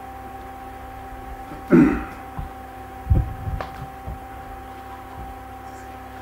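A steady electrical hum with a few dull knocks and thumps over it; the loudest is a short knock about two seconds in.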